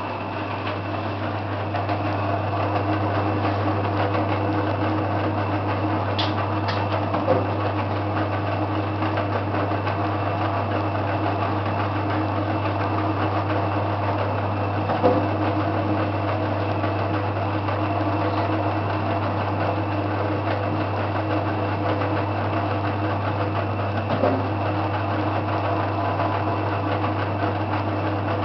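Boilie rolling machine running steadily: its motor hums as the rollers turn bait-paste sausages into round boilies. A few brief knocks come about a quarter, half and three-quarters of the way through.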